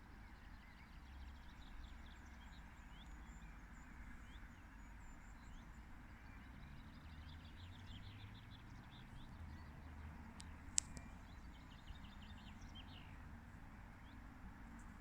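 Faint outdoor ambience: small birds chirping in quick runs over a low distant rumble and hiss, with one sharp click about eleven seconds in.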